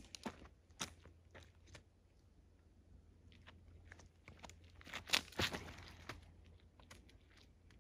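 Dry fallen leaves crunching and rustling faintly in scattered crackles, loudest in a cluster about five seconds in.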